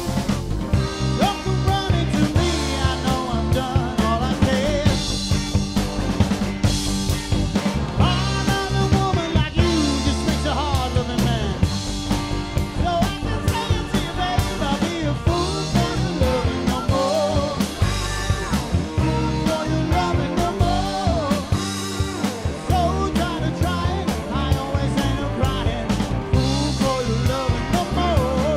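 Rock music from a band, with a drum kit keeping a steady beat under pitched lead lines.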